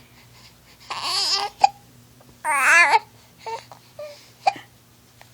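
Eight-week-old baby cooing twice, short wavering coos, with short sharp hiccups between them, one about a second and a half in and another near the end.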